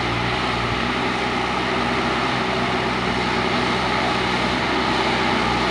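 JCB 3DX backhoe loader's diesel engine running steadily as its front bucket pushes soil.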